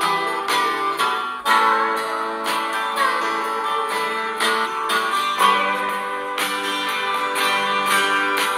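Background music: guitar playing plucked and strummed chords.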